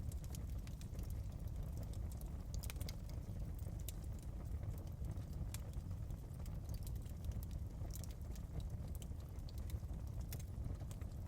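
Wood fire burning in a fireplace: a steady low rumble of the flames with irregular sharp crackles and pops throughout.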